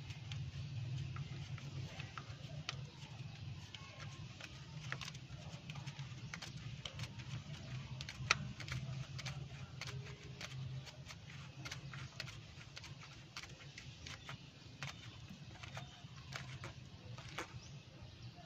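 Scattered light clicks and taps, one sharper about eight seconds in, over a steady low hum.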